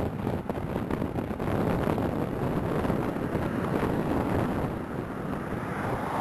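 Wind rushing over the microphone, over the steady road and engine noise of a car driving along a highway.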